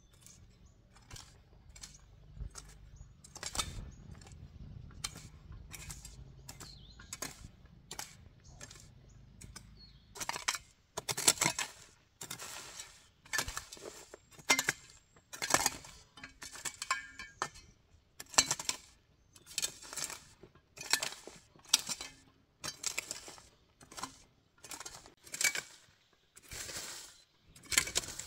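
A hand hoe striking and scraping through dry leaves, twigs and soil in repeated strokes, each a sharp hit followed by a short rustle. The strokes grow louder about ten seconds in and then come at roughly one a second.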